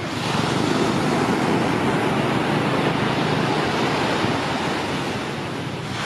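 Surf breaking on a sandy beach: a steady, even wash of waves, with a low rumble of wind on the microphone.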